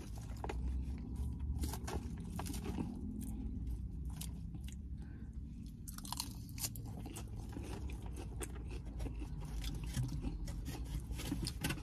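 Close-up chewing and crunching of a mouthful of buffalo chicken salad with crisp lettuce, many small crisp crunches throughout over a steady low hum.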